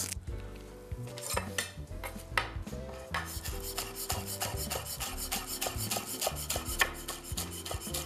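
Chef's knife chopping green onions on a cutting board: a few scattered cuts at first, then steady quick chopping, several strokes a second, from about three seconds in.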